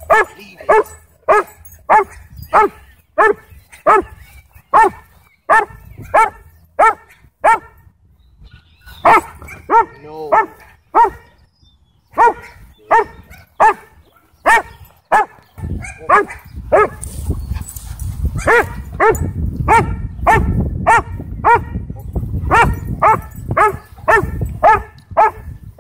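A dog barking over and over, short sharp barks about one to two a second, with a couple of brief pauses. A low rumble runs under the barks from partway through.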